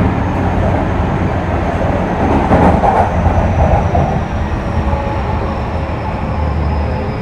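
Running sound inside a Tokyu 3000-series motor car (DeHa 3509) on the move: the rumble of wheels on rail and the drive, with a thin high whine slowly falling in pitch. The rumble gets louder for a moment a few seconds in.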